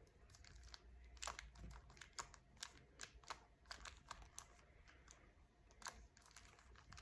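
Rubik's Cube being turned by hand: quick, irregular plastic clicks and snaps as the layers rotate, a few per second.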